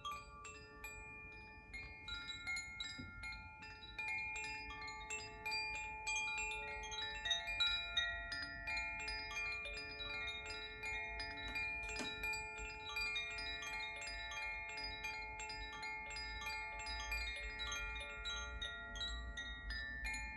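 Koshi chimes ringing: a steady, random stream of bright, overlapping chime notes from the tuned rods being struck by the clapper, each note sustaining and layering into the next.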